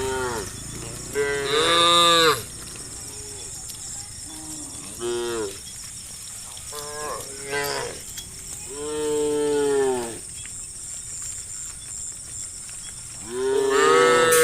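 Cows mooing in a herd, about eight moos one after another, some short and some drawn out for about a second, the loudest about a second in and near the end.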